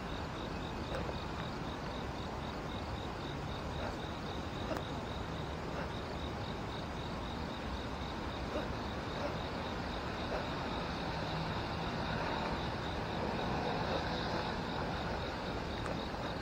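An insect chirping in a steady high-pitched pulse, about three times a second, over a steady low rumble of outdoor background noise.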